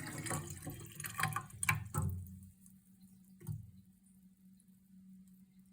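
Water in a sink gurgling and popping as it fades away over the first two and a half seconds, the strange sink noise. A single short knock follows about a second later, over a faint steady low hum.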